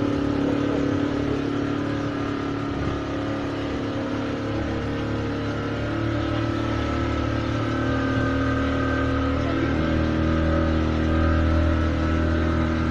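A motor tour boat's engine running steadily under way, with the rush of water and wind. Its note shifts about ten seconds in.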